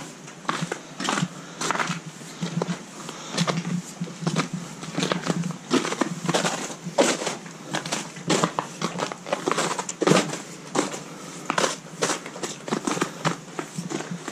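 Footsteps crunching and scraping on ice and frozen snow, an irregular run of crunches a few to the second.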